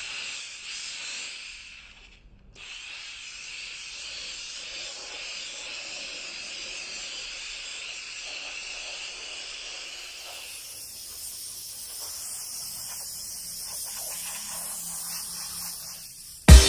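Steam cleaning machine's jet hissing steadily, with a brief stop a little over two seconds in.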